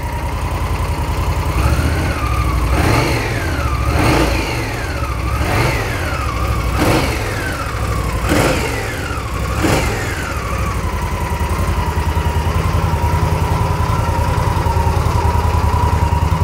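2017 Indian Scout's 1133 cc V-twin engine blipped on the throttle about six times in quick succession, each rev rising fast and falling back, then settling to a steady idle for the last several seconds. It has a nice note and sounds exactly as it should, a healthy-running engine.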